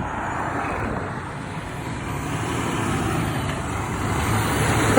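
Peterbilt semi-truck approaching, its engine and tyre noise growing steadily louder, with the start of a horn blast right at the end.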